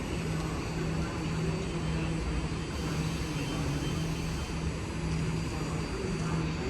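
BART train approaching the station: a steady rumble with a low hum that swells and fades every second or so.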